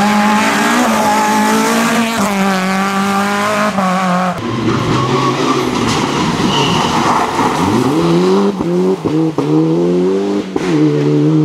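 Rally cars running flat out on a stage. First a Renault Clio rally car revs hard with quick gear changes. Then, after a sudden change about four seconds in, a Mitsubishi Lancer Evolution IX's turbocharged four-cylinder engine climbs in pitch through several upshifts.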